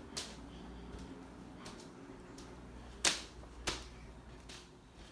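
A few faint, short, sharp clicks, the two loudest about three seconds in and just over half a second apart; no air horn sounds.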